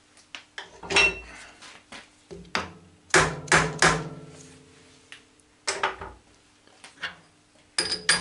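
Soft-faced mallet tapping a small steel workpiece down onto a parallel in a steel milling vise, about ten sharp knocks in small groups, some leaving a brief metallic ring. The taps seat the part flat and square on the parallel as the vise is tightened, ready for milling to final thickness.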